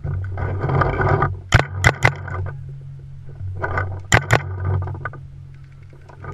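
Paintball marker firing at close range: a quick burst of three shots about a second and a half in, then two more about four seconds in. Rustling and scraping from movement through dry leaves and brush between the shots.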